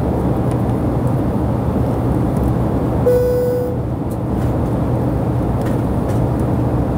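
Steady cabin noise of a Boeing 767-300 in cruise, a deep even rumble of the jet engines and airflow heard inside the cabin. About three seconds in a short single steady tone sounds for about half a second.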